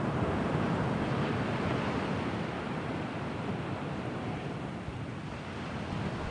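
Sea waves washing in as a steady rush of surf that eases a little past the middle and swells again near the end, with some wind on the microphone.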